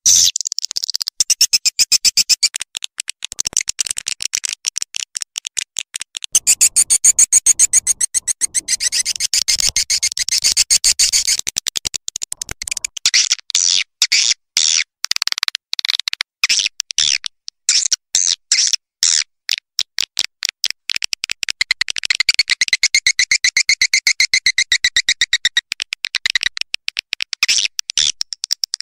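Recorded swiftlet twittering, a swiftlet-house lure sound: long runs of rapid, high-pitched chirps, many to the second, coming in bursts with short gaps between them.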